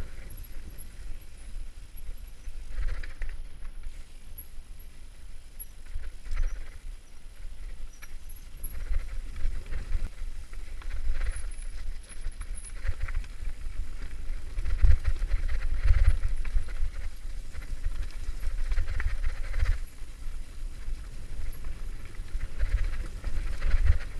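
Mountain bike riding fast down a rough dirt singletrail: a constant low rumble of wind and vibration, with irregular clattering and knocks from the bike over roots and stones. It gets louder and busier about halfway through.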